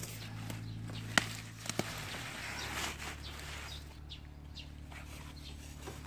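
Leaves and plant stalks rustling as a hand grasps and handles them close to the phone, with two sharp clicks a little over a second in and just under two seconds in. A steady low hum runs underneath and drops in pitch about two seconds in.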